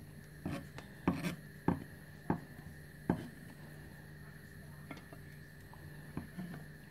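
Knife blade slicing through pepperoni and tapping down on a plastic cutting board: about six sharp taps in the first three seconds, then a few fainter ones near the end.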